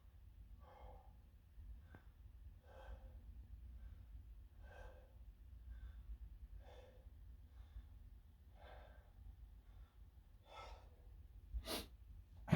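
A person breathing hard while lifting weights, a heavy exhale about every two seconds with a softer breath between. Near the end comes a short, sharp, louder sound.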